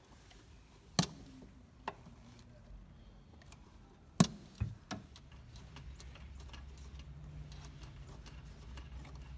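Sharp clicks and knocks of hands and a tool working a power wire through the firewall beside its rubber grommet under the bonnet, the two loudest about a second in and about four seconds in, followed by a run of light ticking and rustling.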